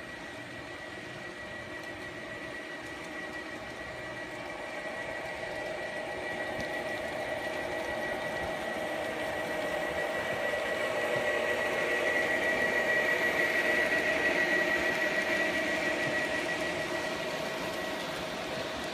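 Garden-railway model diesel locomotive running with a steady electric-motor and gear whine as it pulls a long freight train past, the wheels rolling on the track. It grows louder as the train draws near and eases off near the end.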